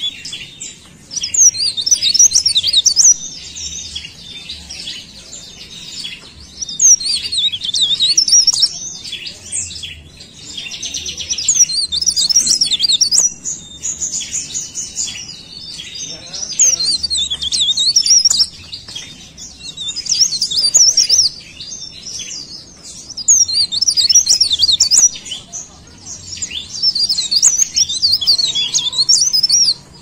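Mountain leaf warbler (cikrak daun) singing: rapid, high-pitched twittering phrases of two or three seconds each, repeated again and again with short pauses between.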